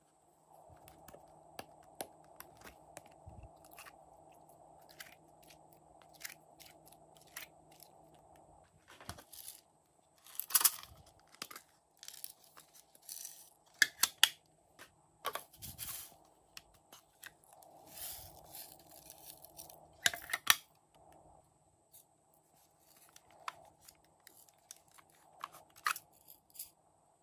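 Thin plastic slime containers being squeezed and pressed to push the slime out: an irregular run of crackly plastic clicks and pops, with several louder crackles.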